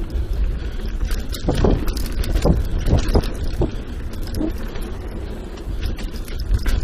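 Mountain bike riding fast down a dirt singletrack, heard through wind rumble on a GoPro microphone, with tyre noise and a run of short knocks and rattles from the bike over bumps through the middle.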